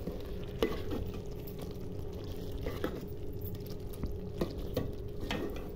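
A long steel ladle stirring tinda (apple gourd) curry in a steel pot, with a handful of short clinks of ladle on pot over the steady sound of the simmering curry.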